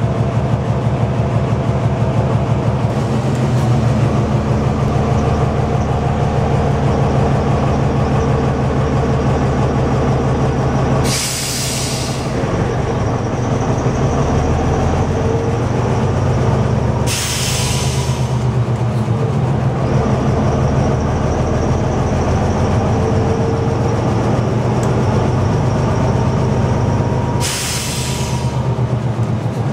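Diesel engine of a vintage Ganz Árpád railbus running steadily under power, heard in the driver's cab, with a low drone and a fast even beat. Three short bursts of air hiss cut in, about a third of the way in, just past halfway and near the end, with a faint high whine between them.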